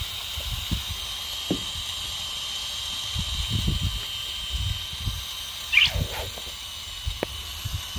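Cordless drill spinning a paper card for spin painting, with a steady high whine, while wind buffets the microphone in low gusts. About six seconds in, one brief high squeal.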